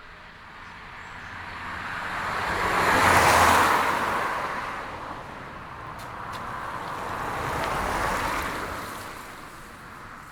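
Two cars passing one after the other, mostly a rush of tyre and road noise. It swells and fades twice: the first pass is louder and peaks about three seconds in, the second peaks about eight seconds in.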